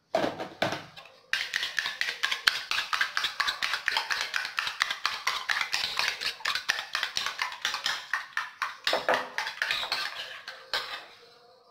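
Metal spoon beating raw eggs in a ceramic bowl: fast, regular clinks and scrapes against the bowl, several strokes a second, stopping near the end.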